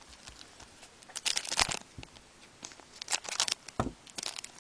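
Foil trading-card pack wrappers and cards being handled, crinkling in three short crackly flurries, with a soft thump a little before the end.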